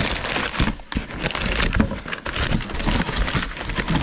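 Crumpled kraft packing paper crinkling and rustling as it is pulled out of a cardboard box, in dense irregular crackles.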